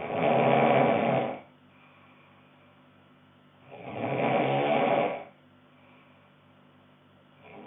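A sleeping person snoring: long rasping snores about every four seconds, two in full and a third starting at the very end, with a faint steady hum between them.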